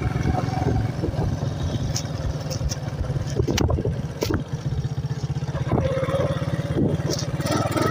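Motorcycle engine running steadily while riding along a road, with a few sharp clicks and rattles over it.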